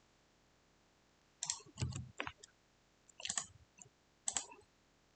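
About six short clicks from a computer mouse and keyboard, spread over the last three and a half seconds after a near-silent start.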